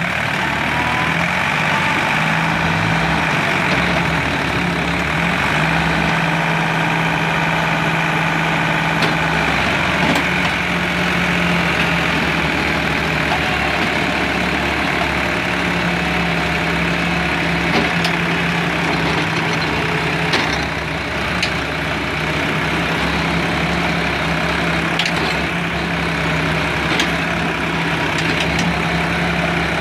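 Sonalika DI 745 tractor's diesel engine running steadily and hard under load, hauling a heavily loaded trolley uphill so that its front wheels lift. A few short sharp clanks here and there.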